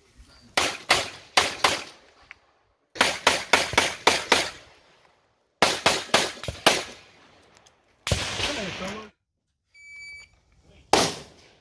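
Rapid strings of pistol shots fired in quick succession: about four, then six, then five, each shot sharp with a short echo. A brief rush of noise comes about eight seconds in. Near the end a shot timer gives a short steady electronic beep, and a single shot follows about a second later.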